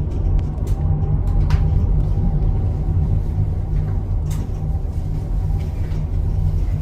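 Steady low rumble of a moving vehicle heard on board, with a faint steady whine and a few light clicks.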